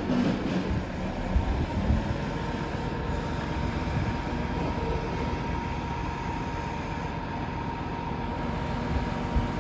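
Steady low rumble of a heavy vehicle running, with a faint steady whine and a few sharp knocks: two about a second and a half and two seconds in, and one near the end.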